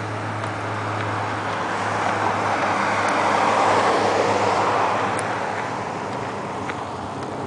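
Road traffic noise with one vehicle passing by: its tyre and engine noise swells to a peak near the middle and fades away again.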